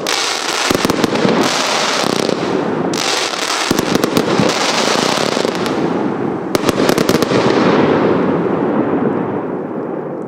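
A 320-shot compound firework cake firing in a dense barrage of rapid reports and crackling, without a break. It eases off over the last couple of seconds as the cake nears its end.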